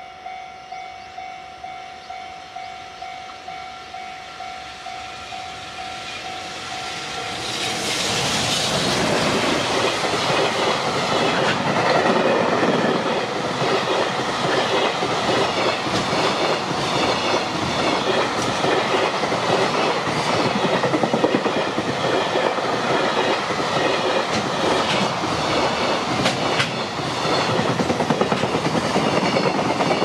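Level-crossing warning bell ringing with steady dings about twice a second, then a JR Freight container train arrives about eight seconds in and its long string of container wagons rolls past close by, wheels clacking over the rail joints.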